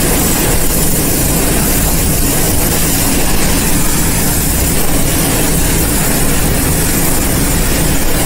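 Storm-force wind and heavy rain beating on a car, heard from inside the cabin as a loud, steady rush with a heavy low rumble; the gusts are strong enough to rock the car. A faint steady low hum runs underneath.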